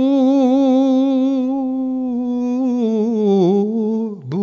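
A solo male voice singing a sevdalinka unaccompanied, holding one long note with vibrato on the word 'srcu', sinking in pitch with a slow ornament about three seconds in, then breaking off briefly near the end before the next note.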